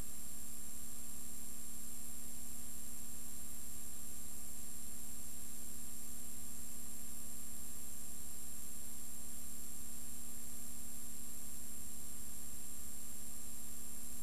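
Steady electrical hum with a faint high whine over even hiss, with no other sound: the noise floor of a silent film's video transfer.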